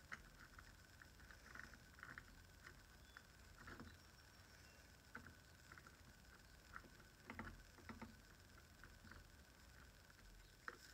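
Near silence broken by faint, scattered clicks and light taps of small chainsaw parts and tools being handled while fitting the bar adjuster nub, with a few slightly louder knocks a little after the middle.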